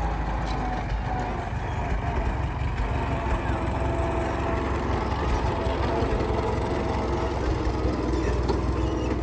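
Tractor engine running steadily, a continuous low rumble.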